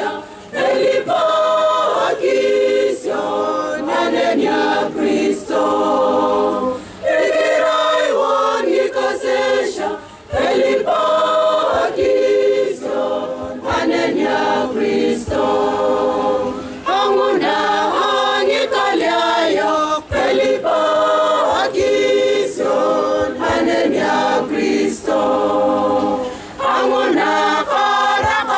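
Church choir singing a song in several voice parts, in sung phrases broken by short pauses for breath.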